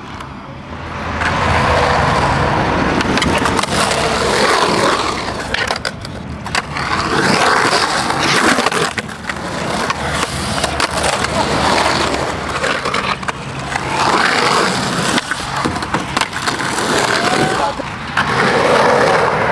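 Skateboard wheels rolling on rough concrete in a ditch, the rolling noise swelling and fading in waves as the rider carves the walls, with a few sharp clacks of the board hitting the concrete.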